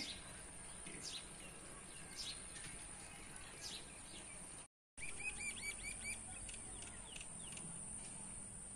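Small wild birds chirping: short, high, falling calls a second or so apart, then a quick run of about six chirps. The sound cuts out for a moment about halfway through.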